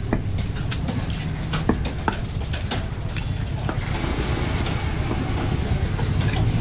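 Heavy cleaver chopping a whole fish on a wooden log block: a series of sharp knocks, roughly two a second, thinning out after about four seconds. Underneath runs a steady low engine rumble.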